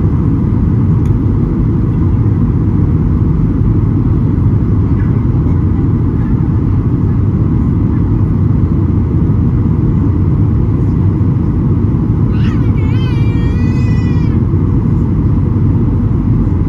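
Steady low cabin roar inside a Boeing 737-800 during approach: engine and airflow noise heard from a window seat. About twelve seconds in, a short, high, wavering cry rises over it for about two seconds.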